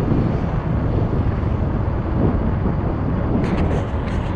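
Steady wind noise on the microphone of a Kawasaki Fury 125 underbone motorcycle being ridden along a road, with the engine and tyre noise beneath it. A few short sharp clicks come near the end.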